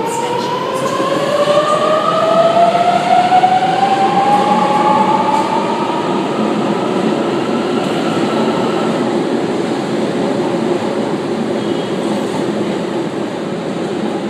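Sydney Trains Millennium (M set) electric train pulling away. The traction motors give a whine that rises steadily in pitch over the first several seconds as it accelerates, then fades into a steady rumble of wheels on rail.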